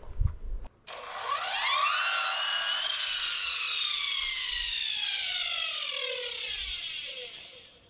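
A knock, then a power saw's motor spins up with a rising whine and cuts wood for about two seconds. The blade then coasts down, its whine falling slowly over several seconds until it dies away.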